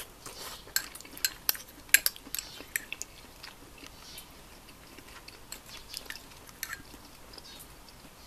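Metal spoon clinking and scraping against a ceramic bowl as it scoops up thick stew: a quick run of sharp clicks in the first three seconds, then a few more about six seconds in.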